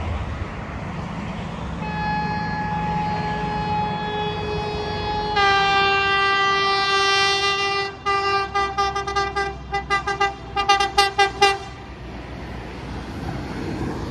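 Alstom X'Trapolis electric train's horn sounded over the train's running rumble: one long held blast that gets louder and fuller about halfway through, then a quick string of short toots, several a second.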